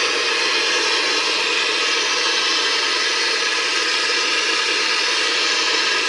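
Handheld gas blowtorch flame burning with a steady, even hiss, heating a rust-seized nut so the rust inside will crack and let it turn.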